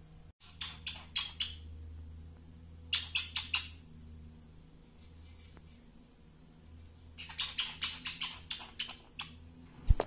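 Pet budgerigar repeating a newly learnt mimicked sound: quick runs of short, sharp clicking chirps, about five a second, in three runs, the last the longest. A single knock right at the end.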